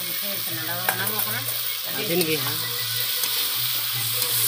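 Chicken curry pieces with onion and tomato sizzling as they fry in a large kadhai, stirred and tossed with a spatula, with a few sharp scrapes of the spatula against the pan.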